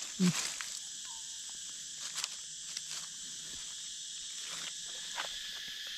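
Steady high-pitched chorus of insects, with a few faint crackles of dry leaves underfoot and a short low sound just after the start.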